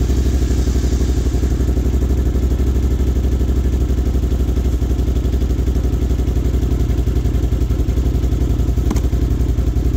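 Four-wheeler (ATV) engine idling steadily, freshly started by bypassing its failed starter solenoid with jumper cables.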